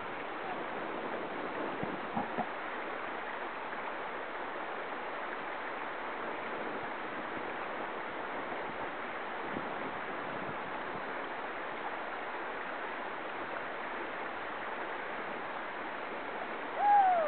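River rapids rushing steadily over a rocky bed. Near the end, a brief loud shout cuts in.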